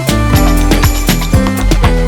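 Electronic background music with a steady, driving beat.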